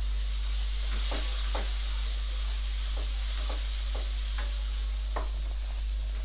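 Squid pieces sizzling in oil in a nonstick wok over high heat, with a wooden spatula stirring and scraping the pan in short strokes about every half second to second, over a steady low hum. The high heat is meant to drive the water out of the squid.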